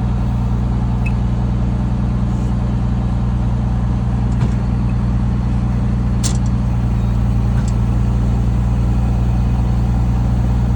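Truck engine idling steadily, running to power a crane during a battery swap, with a few faint clicks over it.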